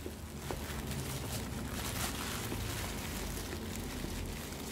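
Plastic bubble wrap crinkling and rustling as it is handled and unwrapped by hand, a steady stream of small crackles.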